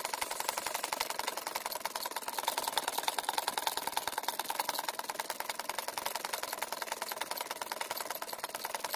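Cinni sewing machine stitching a seam through woven plastic sacking, running steadily with a fast, even clatter of the needle.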